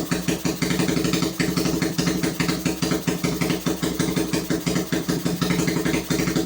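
Suzuki Thunder 125cc single-cylinder four-stroke engine in a custom chopper motorcycle, idling steadily with an even, fast exhaust pulse.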